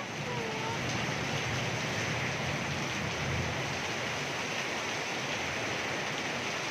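Heavy rain pouring steadily in a rainstorm with strong wind.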